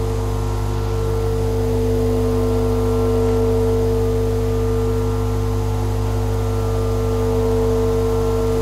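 Ambient drone music: several steady held tones over a constant low hum.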